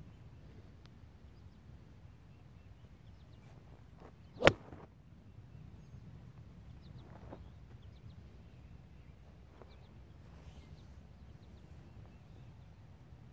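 Golf club striking a ball: a single sharp crack about four seconds in, over faint outdoor background noise.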